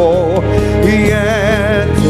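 Live gospel worship music: a voice sings over a full band with heavy bass, ending on a held note with wide vibrato.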